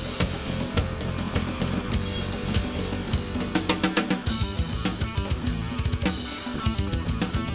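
Live band playing an instrumental passage: electric guitar over a steady drum beat.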